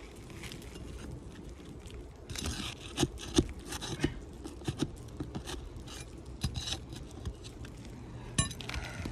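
Scraping and sharp metal-on-shingle clicks of a tool being worked under asphalt roof shingles to free their nails and loosen the shingle.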